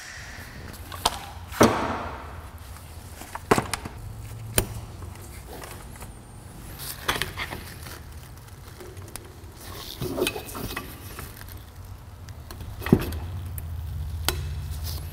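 Hand tools clinking and knocking on a car's front disc brake caliper as it is worked on for new pads: scattered sharp metallic knocks, a second or more apart, over a low steady hum.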